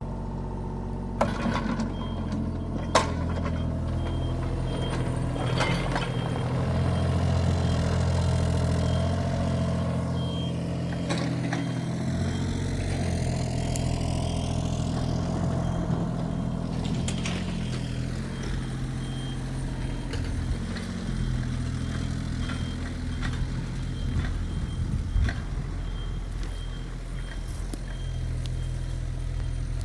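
A heavy vehicle's engine running steadily, with a repeating high warning beep from about ten seconds in and a few sharp knocks near the start.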